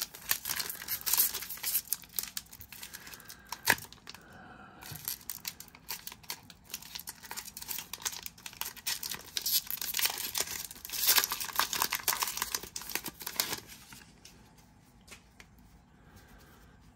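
Foil wrapper of a Panini Mosaic baseball card pack being torn open and crinkled: a dense, crackling rustle that dies down to faint handling noise about fourteen seconds in.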